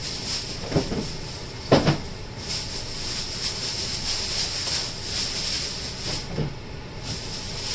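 A few short knocks as fruit and vegetables are set into a refrigerator, over a steady hiss.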